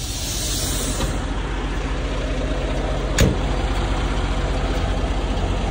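Kenworth W900L semi truck's Cummins X15 diesel idling steadily. A hiss in the first second, and a single sharp click about three seconds in.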